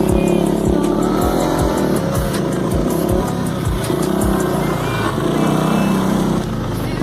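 Motorcycle engines running and revving, mixed with background music that has a steady beat of about two thumps a second.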